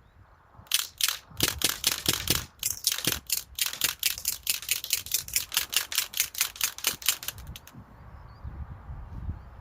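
Umarex MP40 CO2 blowback BB gun firing a long full-auto burst of sharp shots, about five a second, starting under a second in and stopping near the end.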